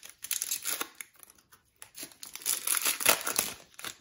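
Foil trading-card pack wrapper crinkling as it is torn open, in two spells of crackly rustling with a short pause between.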